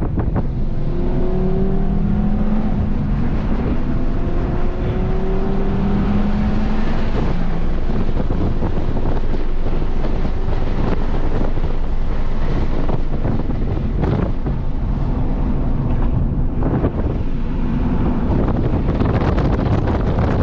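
Heavy wind buffeting on the microphone over an Audi RS3's turbocharged 2.5-litre five-cylinder at full throttle on track. The engine note rises steadily through a gear, shifts up about three and a half seconds in and climbs again, then sinks mostly under the wind rumble, showing faintly again near the end.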